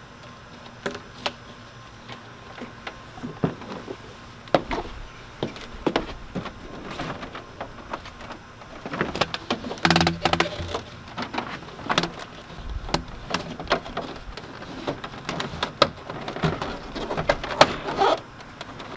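Plastic exhaust hose and adapter being fitted onto the back of a portable air conditioner: irregular plastic clicks, knocks and crinkling from the hose and the unit's housing, busiest in the middle and again near the end.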